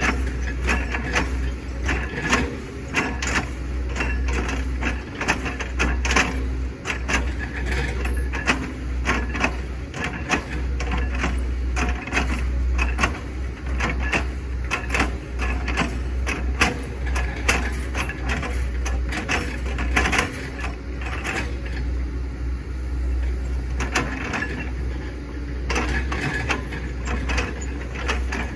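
Hitachi ZX110 excavator's diesel engine running steadily, with many sharp knocks and cracks throughout as its bucket chops up a hard oil palm trunk.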